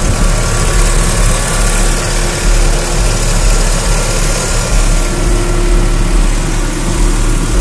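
Truck engine idling, heard close up in the open engine bay, with a steady low rumble and a faint steady whine that drops away in the middle and comes back.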